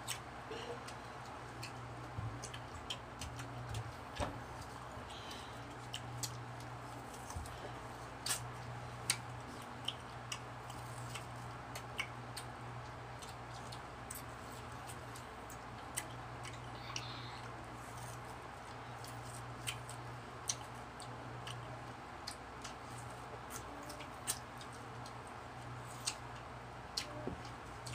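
Close mouth sounds of eating ripe mango: irregular wet smacks and clicks of chewing and sucking the soft fruit, over a low steady hum.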